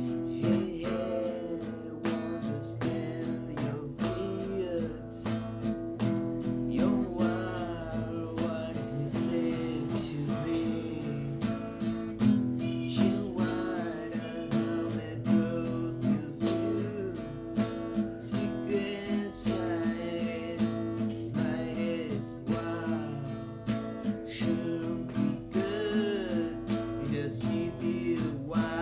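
Music led by a strummed acoustic guitar, with a melody line that slides up and down in pitch above it.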